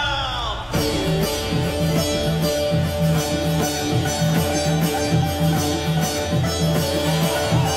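Music accompanying a shadow-puppet show: held steady notes over a regular beat of about two to three pulses a second, coming in suddenly just under a second in.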